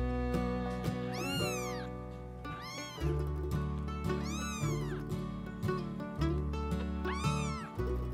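Very young orange kitten meowing about four or five times, each high cry rising then falling in pitch, over background music.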